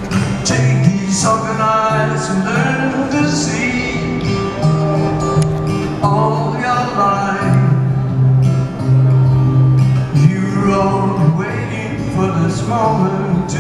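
Live solo acoustic guitar, fingerpicked with steady alternating bass notes, and a man singing over it in several phrases, recorded from the audience.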